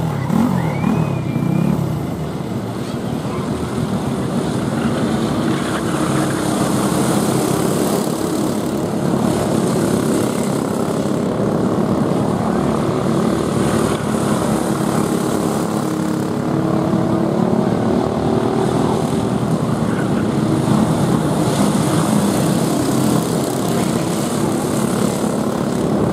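Several racing go-karts' 5 hp Briggs & Stratton Raptor flathead engines running hard in a race, a loud continuous drone whose engine notes rise and fall in pitch as the karts circle and pass.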